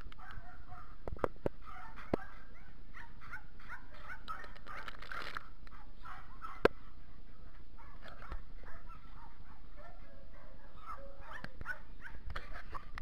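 Several dogs barking and calling over one another, a constant scatter of short, high-pitched calls, with a single sharp click about two-thirds of the way through.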